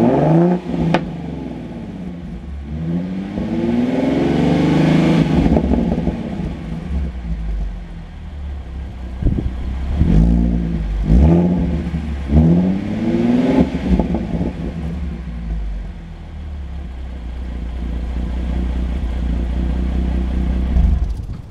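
2017 Ford Mustang 3.7-litre V6 through a Roush axle-back exhaust, revved in place: a sharp blip at the start, a longer rev rising and falling a few seconds in, three quick blips around the middle, then settling into a steady idle.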